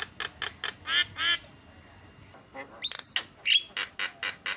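Javan myna (jalak kebo) calling: a rapid run of short harsh notes, about four a second, with two longer buzzy notes about a second in. After a short pause comes a whistled note that rises and falls, then more quick notes.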